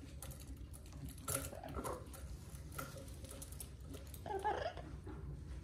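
A yellow-naped Amazon parrot gives two short, wavering calls, one about a second and a half in and another near the end. Faint clicks and scrapes come as it shuffles along its perch.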